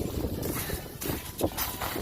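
Footsteps crunching on snow-covered ice, a few short steps over a steady low rumble of wind on the microphone.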